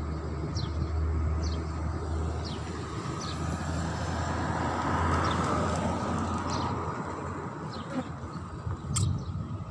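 A motor vehicle passing, its sound swelling to a peak about halfway through and then fading. A bird gives short high chirps about once a second.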